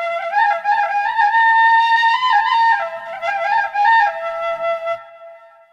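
Intro music: a solo flute melody stepping between notes, ending on a long held note about four seconds in that fades away.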